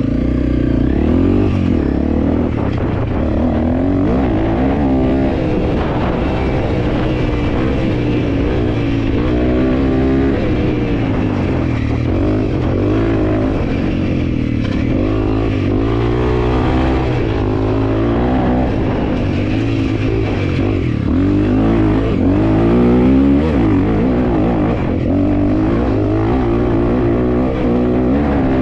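Honda CRF300L's single-cylinder four-stroke engine running under way, its pitch rising and falling again and again with the throttle.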